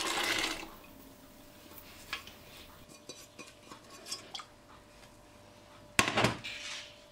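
Soaked white beans and water pouring from a stainless steel pot into another pot, stopping within the first second. Then a few light clicks, and about six seconds in, a stainless steel pot set down with a sharp clank that rings briefly.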